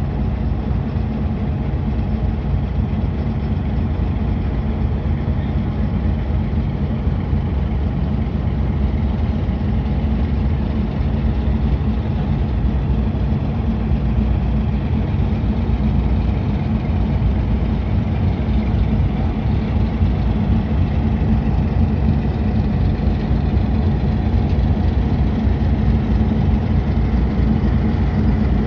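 Diesel locomotive engine running steadily, a low, even drone that holds one pitch throughout.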